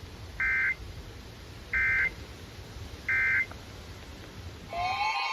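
Emergency Alert System end-of-message code: three identical short bursts of two-tone digital data chirps, about 1.35 s apart, over background hiss, marking the end of the warning message. Near the end a new, louder sound starts: several steady tones with a pitch sweeping up and down beneath them.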